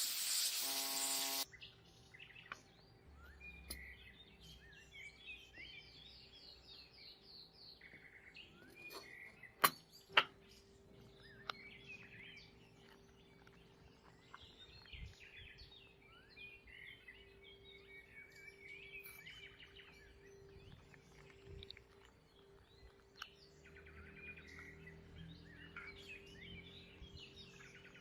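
Songbirds chirping faintly and repeatedly over a steady low hum, with two sharp clicks about ten seconds in. It opens with a loud hiss that cuts off about a second and a half in.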